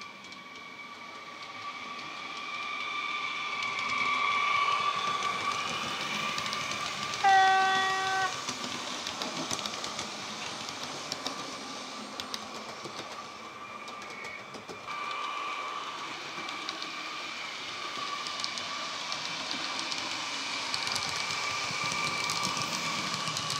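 Sound decoder of a Brawa Twindexx double-deck electric multiple unit model playing a steady electric traction whine as the train runs, alongside the faint clatter of the model on its track. One horn blast of about a second, the loudest sound, comes about seven seconds in.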